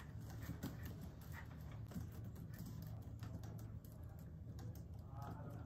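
Several people typing on laptop keyboards: a quick, irregular clatter of key clicks, over a low steady hum.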